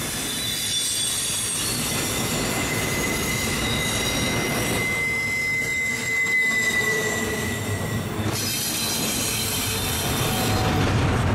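Intermodal freight train rolling past with a steady rumble, its steel wheels squealing in thin high tones on the rails.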